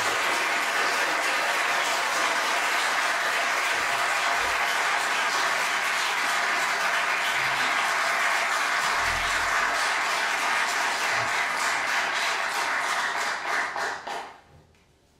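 Audience applauding steadily, thinning to a few last separate claps near the end before dying away.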